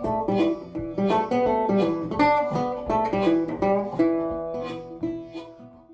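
Background music: a plucked string instrument picking a quick run of notes over a few held tones, fading out near the end.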